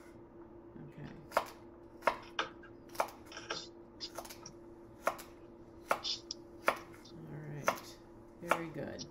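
Chef's knife chopping a celery rib on a wooden cutting board: a sharp knock of the blade against the board roughly once a second.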